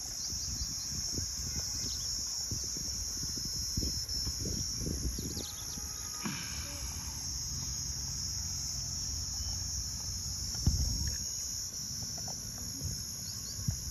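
Steady high-pitched chirring of an insect chorus. Under it there is irregular low rumbling, and a single thump comes about ten and a half seconds in.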